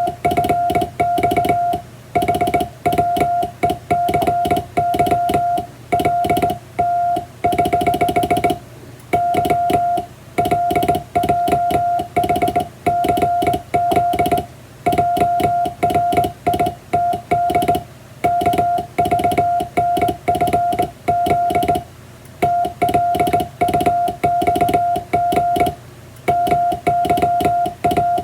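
International Morse code hand-sent on a vertical straight telegraph key: a steady mid-pitched beep keyed on and off in dots and dashes, with the key clicking along with it.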